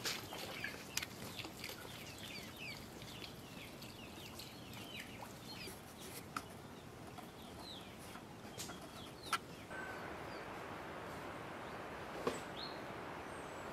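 Birds chirping: many short, high, falling chirps in quick succession over the first five seconds, then only a few. A steady rushing noise sets in about ten seconds in.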